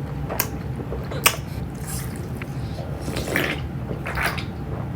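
Close-up eating sounds from a person taking a bite of food: wet mouth noises with a few sharp clicks, the loudest about a second in.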